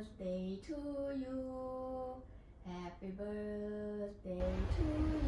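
A woman singing a slow melody in long held notes, phrase by phrase. Near the end, a loud rush of wind and street noise comes in under the singing.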